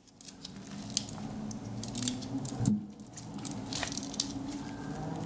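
Handling noises of a Swiss Army knife being fitted into a fabric organizer pouch: soft rustles and small scattered clicks over a low steady hum.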